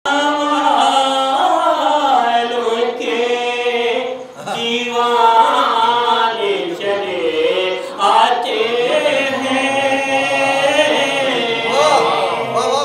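A man chanting devotional verse in a melodic, sung style into a microphone, holding long notes that bend in pitch, with a brief breath pause about four seconds in.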